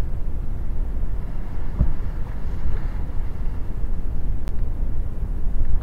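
Wind buffeting the microphone as a steady low rumble, with small waves washing and breaking against the shore rocks.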